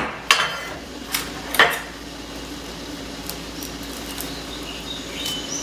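Kitchen utensils knocking and clinking three times in the first two seconds, then only a steady low hum.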